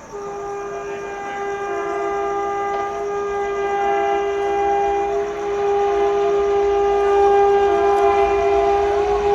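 Indian Railways WAP4 electric locomotive's dual-tone horn held in one long blast. A single tone starts the blast, and a second, lower tone joins about a second and a half in. The horn grows steadily louder throughout.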